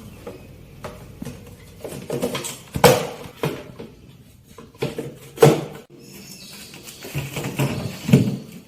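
Kitchenware being handled: a series of knocks and clatters, with the loudest sharp knocks about three seconds in, again at five and a half seconds, and near the end.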